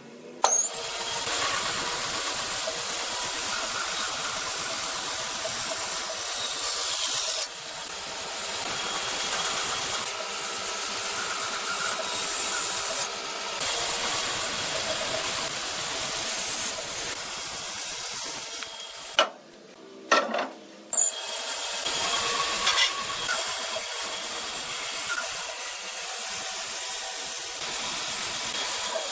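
A power tool working wood with a steady, high-pitched grinding noise. It eases briefly about a quarter of the way in, then stops for about two seconds past the middle, with a couple of knocks, before starting again.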